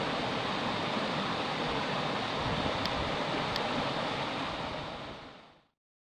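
Steady rushing of a small mountain stream flowing over rocks, fading out to silence a little past five seconds in.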